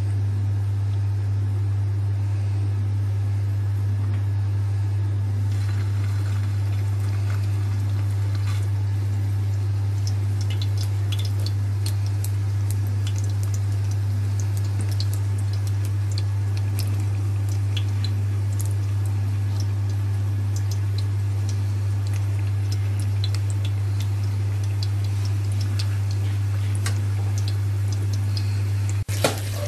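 A steady low hum, with faint sizzling of hot oil in a pan; scattered small crackles start about ten seconds in as minced-meat kabab balls fry.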